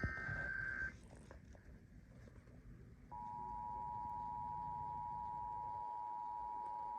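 Emergency Alert System tones on FM radio: the tail of a SAME digital header burst, a steady high tone, cuts off about a second in. After a short gap the EAS two-tone attention signal (853 and 960 Hz together) starts about three seconds in and holds steady.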